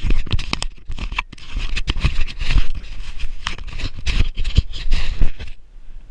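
Footsteps crunching through snow, with jacket and fur hood rustling against the body-worn microphone; the crunching stops about five and a half seconds in.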